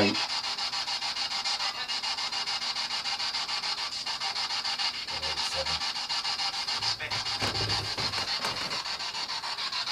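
Spirit box (ghost box) radio sweeping fast through the stations: continuous hissing static chopped into a rapid flutter. A few faint low snatches of radio sound break through about five seconds in and again a couple of seconds later.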